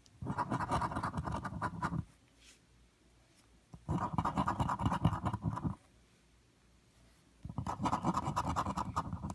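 Scratch-off lottery ticket being scratched, the latex coating scraped away in three bursts of rapid strokes, each about two seconds long.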